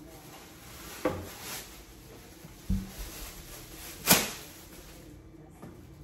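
A sharp knock about a second in and a low thud nearly three seconds in, then a thin plastic bag shaken open with a sharp snap about four seconds in, the loudest sound.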